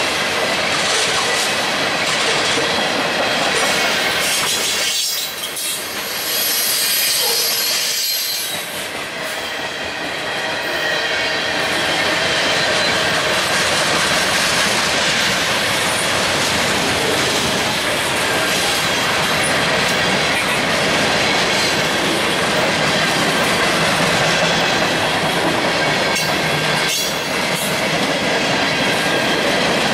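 CSX manifest freight train's tank cars and boxcars rolling past at close range: a loud, steady rumble of steel wheels on rail, dipping briefly about five and eight seconds in.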